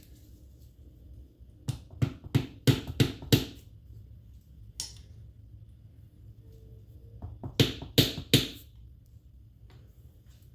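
Sharp taps on metal parts of a lawn tractor's transaxle, about six in quick succession and then three more a few seconds later.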